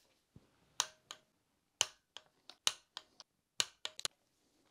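A string of sharp, uneven metallic clicks, about a dozen, a few with a short ring, from wrench work on the cylinder head bolts of a Lada Niva 1600 engine as they are tightened down.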